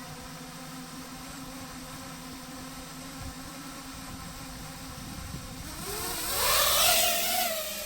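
FPV quadcopter's brushless motors spinning at idle with a steady whine, then throttled up about five and a half seconds in: the whine rises in pitch and a loud rush of prop wash swells as the quad takes off.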